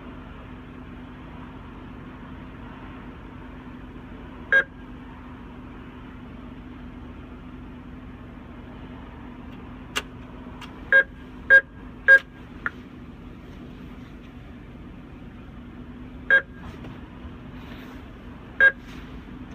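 Drive-up ATM keypad beeping as keys are pressed: one beep, then after a click three quick beeps about half a second apart, then two more single beeps a couple of seconds apart, over a steady low hum.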